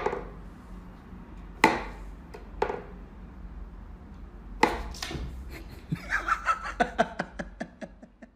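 Knocks and taps on a wooden whack-a-mole cat toy as its pegs are pushed and a cat paws at it. A few single knocks come about a second apart, then a quick run of taps near the end.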